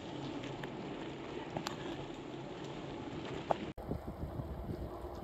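Wind on the microphone and tyre hiss from a bicycle rolling along a wet lane, with a few small clicks. About three and a half seconds in, the sound cuts abruptly to heavier, rumbling wind buffeting.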